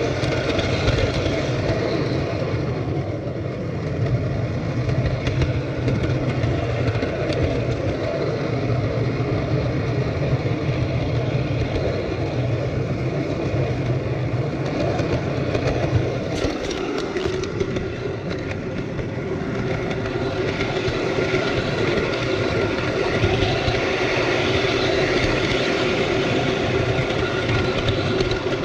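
Model train running along its track: a steady motor hum and wheel rumble, changing in tone about sixteen seconds in.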